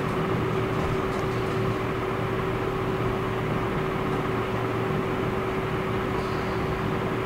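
Steady hum of a running electric motor, such as a room fan, with one steady mid-pitched tone through it and an even level throughout.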